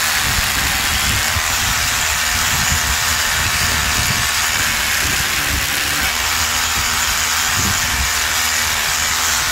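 Einhell Herocco 18 V brushless cordless rotary hammer drilling into reinforced concrete, hammering steadily without a pause.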